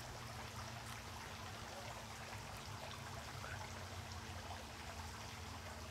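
Water from a swimming pool's spillway splashing and trickling steadily, over a steady low hum.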